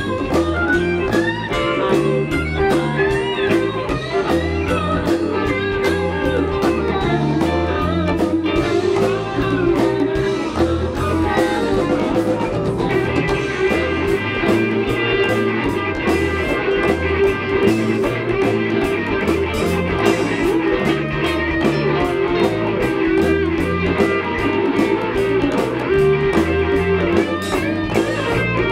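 Live rock band playing a blues number: electric guitar lead with bent, sliding notes over bass and a steady drum beat, settling into longer held notes about halfway through.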